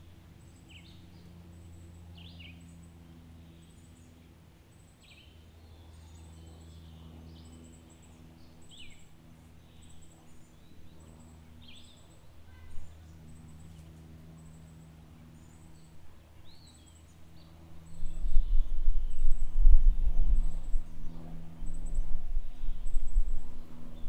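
Birds chirping in short, falling calls, with a high short chirp repeating about twice a second over a steady low hum. About three quarters of the way in, a loud, gusty low rumble comes in and becomes the loudest sound.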